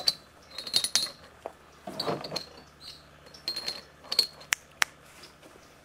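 Weights clinking and knocking as they are dropped one by one into a woven plastic basket hung between two spring scales: about eight sharp, irregular clinks, some with a brief metallic ring.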